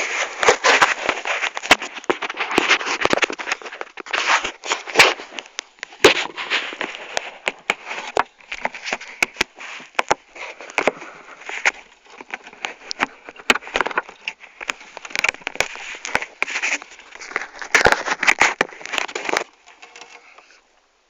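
Irregular crackling noise full of sharp clicks, picked up by the onboard camera on a homemade radio-controlled bait boat; it cuts off suddenly near the end.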